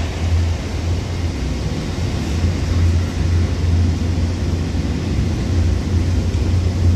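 Container flat wagons of a freight train rolling past close by on the through line, a steady loud rumble of wheels on rail with a deep low hum that swells and eases.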